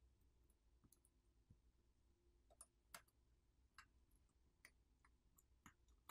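Faint, irregular small clicks and ticks, about seven in six seconds, from fingers and a pry tool working on a smartphone's internal subboard and its flex-cable connectors.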